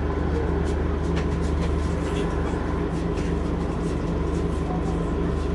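Scania N230UD double-decker bus's five-cylinder diesel engine idling steadily, heard from inside the bus, with a few faint clicks.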